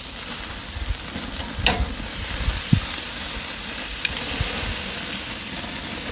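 Steaks and pork chops sizzling over a charcoal grill, a steady hiss, with a few short clicks of metal tongs against the grate as the meat is turned.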